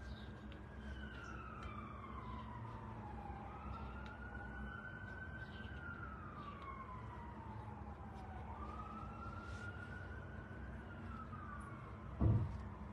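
Emergency vehicle siren wailing faintly, its pitch slowly rising and falling in about three long sweeps. A single dull thump comes near the end.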